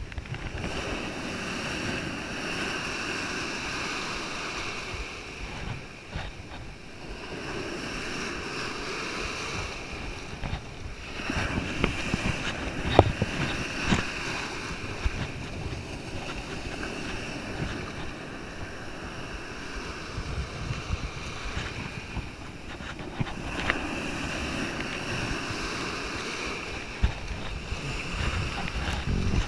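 Ocean surf washing and foaming in the shallows, surging up and down, with wind on the microphone. A few brief sharp splashes stand out around the middle as hands work in the water.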